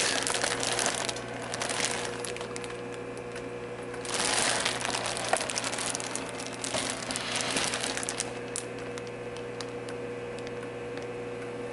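Intermittent crinkling and rustling in a few bursts, at the start, about four seconds in and again around seven seconds, over a steady low hum.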